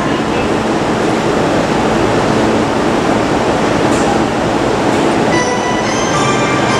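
Steady noise of a JR E231-800 series commuter train standing at an underground platform with its doors open. Near the end a chime of several steady tones starts, like a platform or door chime.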